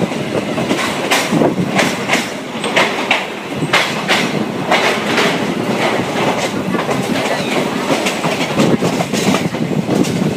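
Moving commuter train carriage running along the track, its wheels clacking over the rail joints with a continuous rumble and rattle. The clacks come in quick, uneven runs.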